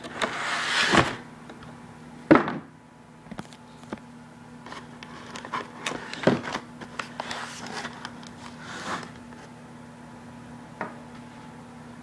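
Cardboard box being handled and opened: scraping and rustling of the cardboard, one sharp knock a little over two seconds in, then scattered light taps and rustles, over a faint steady hum.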